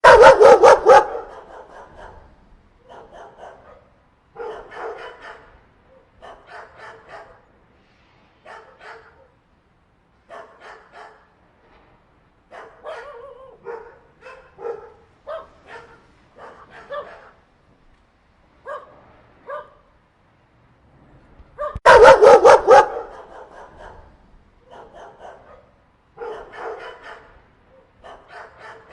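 A group of dogs barking in short repeated bouts, with quieter barks between. The barking is loudest at the very start and again about 22 seconds in.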